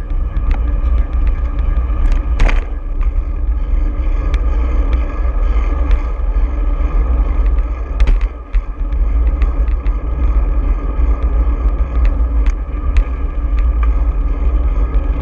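Heavy wind rumble on a bicycle-mounted action camera's microphone while riding in city traffic, with road rattle and scattered sharp knocks from bumps in the pavement.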